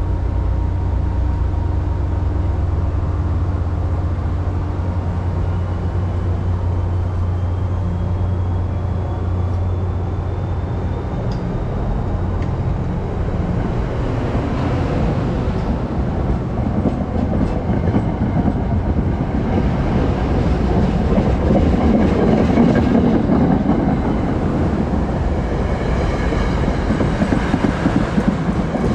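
NJ Transit passenger coaches rolling past at close range as the train pulls away and picks up speed: a low steady hum fades after about ten seconds while wheel and rail rumble builds, with clickety-clack over the rail joints near the end.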